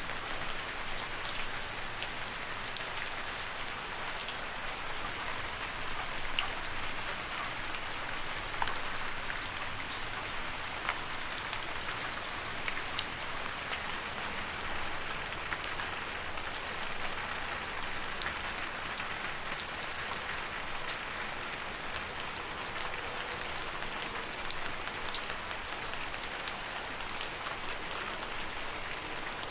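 Steady rain falling, an even hiss with many small drop ticks scattered throughout.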